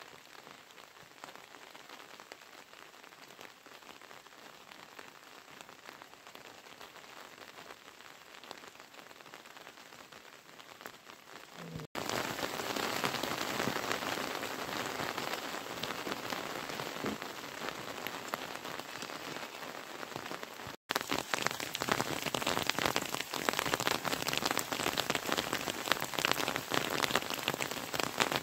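Steady rain falling, a dense patter that gets louder after about twelve seconds and again at about twenty-one seconds, each step up following a brief dropout.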